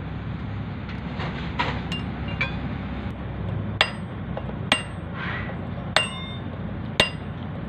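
Hammer blows on a steel drift held against a tractor's front wheel hub, knocking the spindle check nut loose. A few lighter knocks, then sharp ringing metal-on-metal strikes about once a second in the second half.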